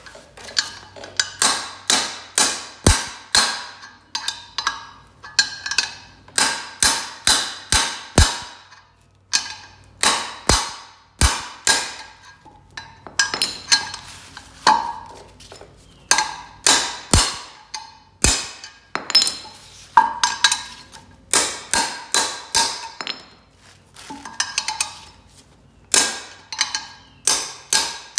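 Hammer blows on a wrench set over an oil pickup tube, driving the tube into a new small-block oil pump: sharp metal clanks with ringing, in quick runs of several strikes with short pauses between.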